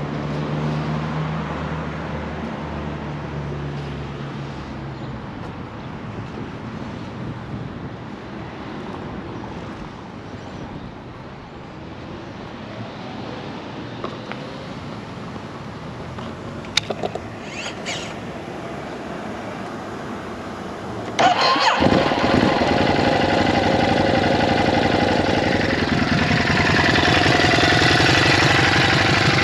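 Low background noise with a few sharp clicks, then about three-quarters of the way through the Ducati Hypermotard 950's 937 cc Testastretta L-twin is started and catches at once, settling into a steady, rhythmic idle.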